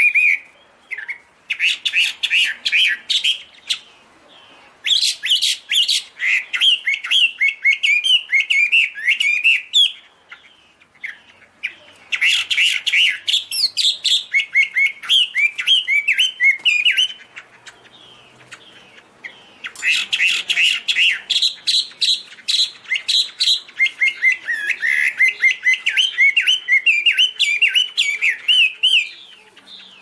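Chinese hwamei (Garrulax canorus) singing: fast runs of varied whistled notes in four long phrases, with pauses of a second or two between them.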